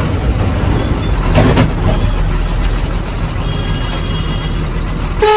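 Inside a moving Haryana Roadways bus: steady engine and road rumble as it drives through town traffic. A horn blast begins right at the end.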